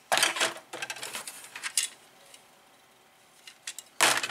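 Plastic model kit parts trees rattling and clattering as they are handled and set down in a cardboard kit box: a burst of clatter in the first two seconds, a few light clicks, then another clatter near the end.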